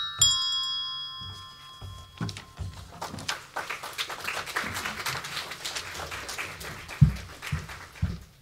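A set of coloured handbells ringing: one last strike just after the start, its chord fading out over about two seconds. Then paper sheets rustling and shuffling, with a few soft thumps and one louder thump about seven seconds in.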